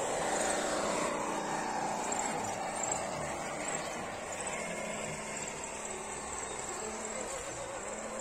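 Electric motors and gearboxes of RC scale trucks whining as they drive. The whine falls in pitch over the first couple of seconds, as a truck slows, then settles to a steady hum.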